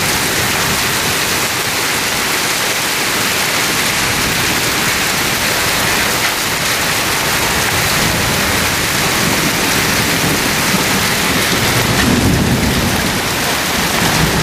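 Torrential rain pouring down in a steady, dense roar of water, with a low rumble of thunder swelling near the end.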